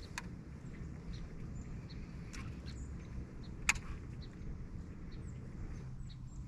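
A steady low boat hum, with three sharp clicks or knocks, the loudest just past halfway, and faint bird chirps.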